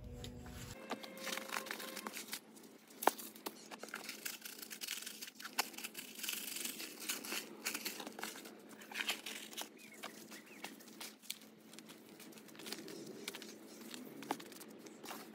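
Gloved hands scattering granular fertilizer over compost in a plastic tub and working it through by hand: a continuous dry rustling and crackling, dotted with many small ticks.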